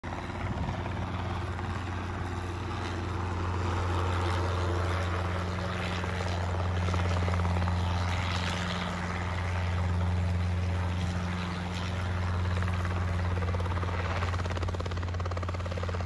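Robinson piston helicopter flying low, a steady low rotor beat and engine hum that swells and eases a little in loudness.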